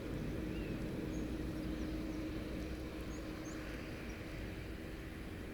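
Field ambience: a steady low rumble with wind on the microphone, a steady low hum, and faint small bird chirps scattered through.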